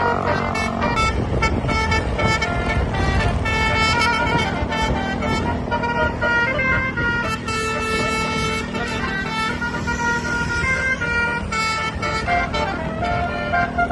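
A bus's Basuri multi-tone air horn playing a "telolet" melody, a quick string of changing horn notes, over the steady low hum of the bus engine.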